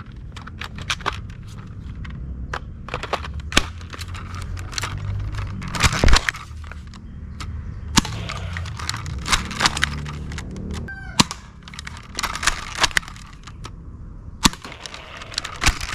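Sharp plastic clicks and cracks at irregular intervals, the loudest about six seconds in, over a steady low rumble: a toy sniper blaster being handled and worked.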